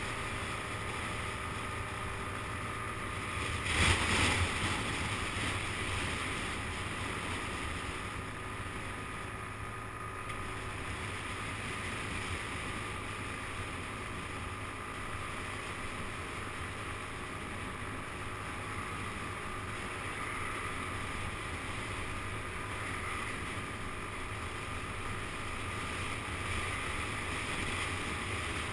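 Wind rushing over the microphone of a moving motor scooter, with the scooter's small engine running steadily underneath as it cruises along. A brief, louder rush comes about four seconds in.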